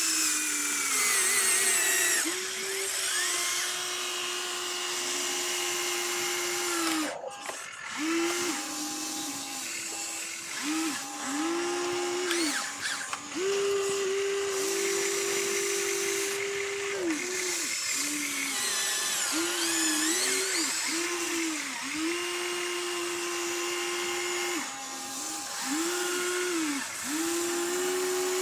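Small electric motors of a radio-controlled construction model whining, spinning up to a steady pitch, holding it for a second or several, then winding down, over and over.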